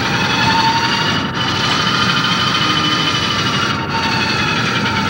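A small industrial robot arm's joint motors whine as the arm moves, their pitch rising, holding and then falling back as the motion eases off. Underneath is a steady mechanical rumble.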